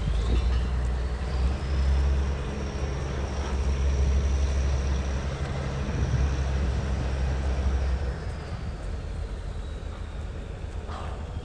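Diesel engine of heavy demolition machinery running with a steady low rumble, which eases off about eight seconds in, and a faint high whine that slowly rises and falls.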